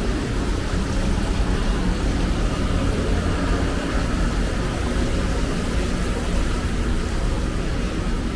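Steady city street ambience: a constant low rumble with a hiss over it, and no single event standing out.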